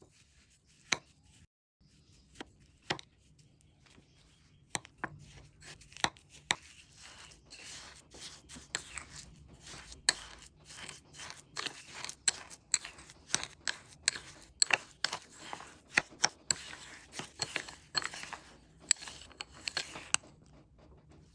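Wooden spoon mashing and stirring butter into brown sugar in a glass bowl, knocking and scraping against the glass. A few separate taps come first, then from about four seconds in a fast run of clicks and scraping that stops just before the end.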